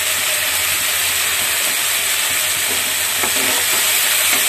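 Chopped capsicum, carrot and green peas sizzling steadily in hot oil in a metal wok as they are stirred, with a few short scraping sounds about three seconds in.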